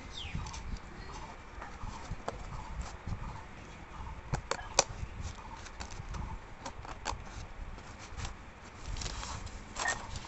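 Thin bamboo sticks clicking and knocking against each other as they are handled and laid out for a bamboo stool frame: an irregular scatter of sharp clicks, the loudest few about four and a half seconds in.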